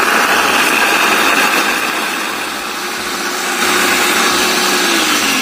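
Electric food chopper motor running at full speed, its blade whirring through a wet spice paste of shallots, garlic, chilies and turmeric. The loudness dips slightly about halfway through, then rises again.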